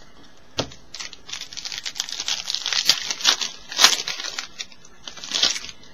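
Trading-card pack wrapper being torn open and crinkled in the hands, in a dense run of crackling with a sharp snap about half a second in and a last burst near the end.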